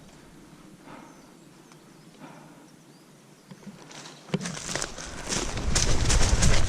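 Footsteps crunching and rustling through dry leaves and twigs on a forest floor, starting about four seconds in after a quiet stretch and getting louder and quicker, with clothing and gear rustling against the microphone.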